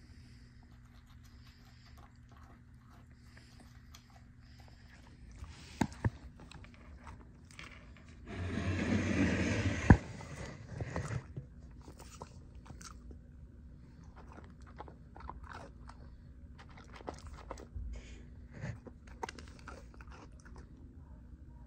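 A dog crunching dry kibble, with scattered crunches and clicks. About eight seconds in comes a louder scuffing noise lasting about two seconds that ends in a sharp knock.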